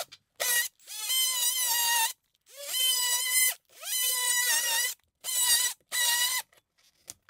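Cordless oscillating multi-tool plunge-cutting through drywall in about six short bursts. Each burst spins up with a quick rising whine to a steady high-pitched buzz, then cuts off.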